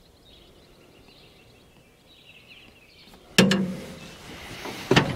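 Faint outdoor background with light bird chirps, then about three and a half seconds in a sudden loud knock followed by rustling, and a second knock near the end.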